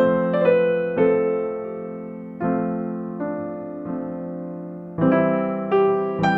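Background music: soft electric piano playing slow, sustained chords that are restruck about once a second and fade between strikes.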